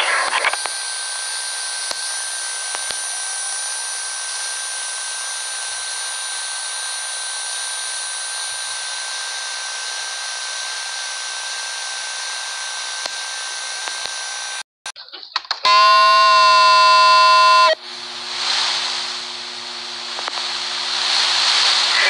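Steady hiss with a faint high whine, which cuts out briefly about fifteen seconds in. Then a loud, buzzy emergency alert tone is held steady for about two seconds. Hiss with a low hum follows.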